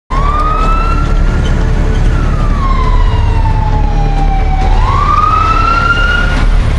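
Fire engine siren wailing: the tone rises, falls slowly over a few seconds, then rises again near the end, over a steady low rumble.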